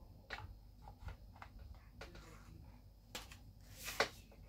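Faint clicks and scrapes of plastic parts as a whisk attachment is worked into a hand blender's attachment socket. There is a louder knock near the end.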